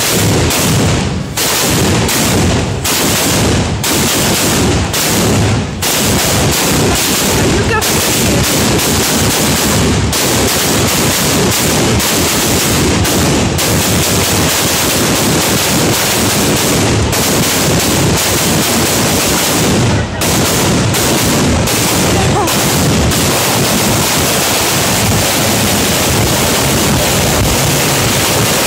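A string of ground firecrackers going off in a dense, continuous rattle of loud cracks, like machine-gun fire. There are a few brief lulls in the first six seconds and one about twenty seconds in.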